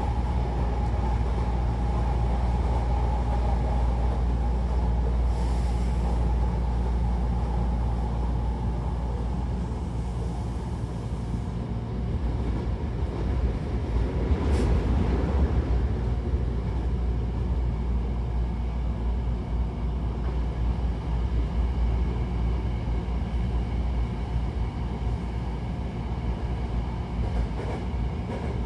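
Hankyu Takarazuka Line electric train heard from inside the car while running: a steady low rumble of wheels on rail. A mid-pitched hum is present over the first few seconds, and a brief louder swell comes about halfway through.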